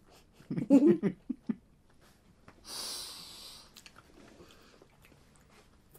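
A short voiced sound near the start, then a breathy exhale lasting about a second, from a person with fizzing carbonated cola candy in her mouth.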